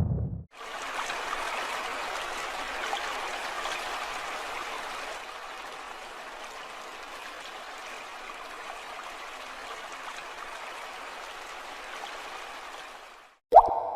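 A stream of water flowing with a steady, even rush that fades out near the end. Just before the end comes a sharp single plop, like a drop falling into water.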